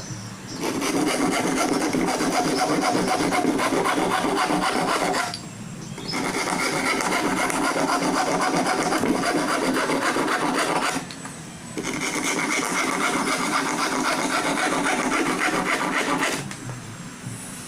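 Metal file rasping across the teeth of a hand saw to sharpen it, in three runs of quick strokes with short pauses between them.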